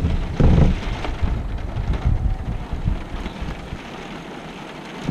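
Wind gusting over the microphone in a low, uneven rumble during a rain shower, with a strong gust about half a second in, easing to a lull near the end.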